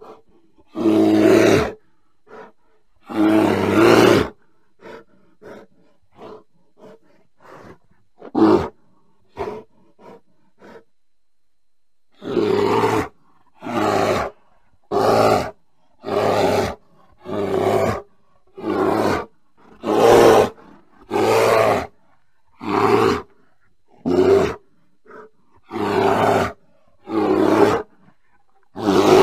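Bear calling: two long loud calls near the start, a few short faint grunts, then from about halfway a steady run of calls, each well under a second long, a little over one a second.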